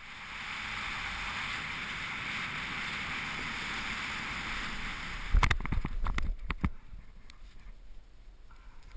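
Steady wind rushing over the camera microphone as a skydiver flies a parachute canopy low over the grass on final approach. About five and a half seconds in, the wind noise drops and a quick cluster of thumps and scuffs comes as the skydiver touches down, followed by a few fainter knocks.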